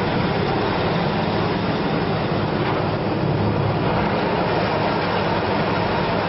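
Heavy road-repair machinery running: a loud, steady engine noise with a constant low hum.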